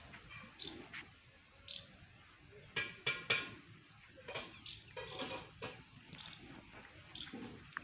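Small birds chirping faintly in short, scattered calls, with a louder pair of calls about three seconds in.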